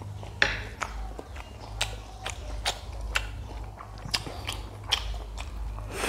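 Close-miked chewing of a mouthful of noodles and corn fritter, with sharp wet mouth clicks about twice a second over a low steady hum.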